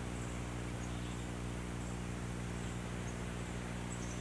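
Steady low hum and hiss of an old videotape recording, with a few faint, high, short chirps.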